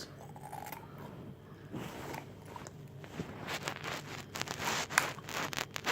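Crackling, clicking handling noises from a rubbery mesh squishy ball being cut open and pulled apart, faint at first and turning into a quick run of short crackles in the second half.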